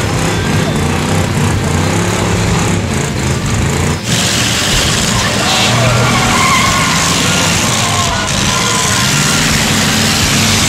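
Several race-prepared car engines running hard on a dirt track, their pitch rising and falling as the drivers rev and lift, over a loud wash of track noise.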